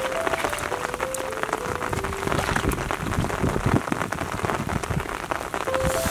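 Heavy rain falling on shallow water and grass, a dense steady patter of drops. A simple background melody comes and goes, in the first couple of seconds and again near the end.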